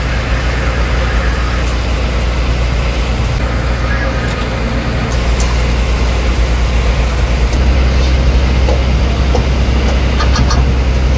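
Fishing boat's engine running with a steady low rumble, and a few light clicks of a ladle against an aluminium cooking pot.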